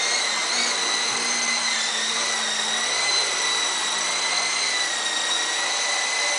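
Venom Beacon micro RC helicopter in flight, its small electric motors and rotors giving a steady high whine that wavers slightly in pitch.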